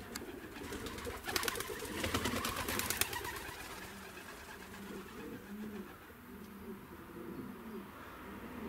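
Maltese pigeons cooing, a series of low repeated coos. From about one to three seconds in there is a louder burst of rapid rustling clicks.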